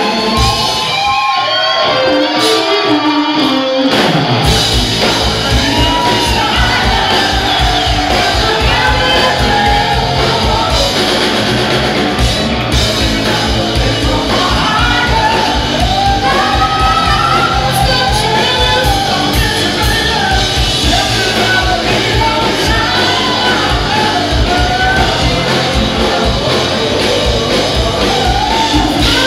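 Live rock band playing: electric guitar, bass and drums with a male lead vocal. It opens with a short falling run and no drums, and the full band comes in about four seconds in.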